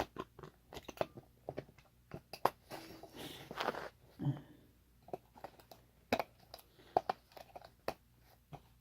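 Irregular light clicks and knocks of handled plastic, with a brief rustle a few seconds in.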